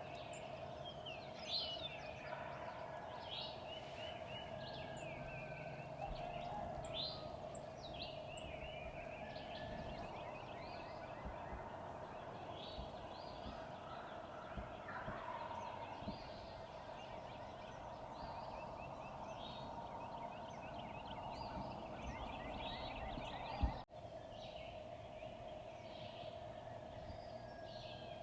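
Woodland birds chirping and singing in short repeated phrases over a steady, unbroken drone that runs throughout.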